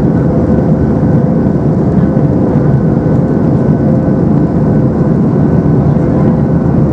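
Steady cabin noise inside a Boeing 737-300 in flight: the even rumble of its CFM56 engines and the rush of air over the airframe, heard from a window seat over the wing, with a faint steady hum running through it.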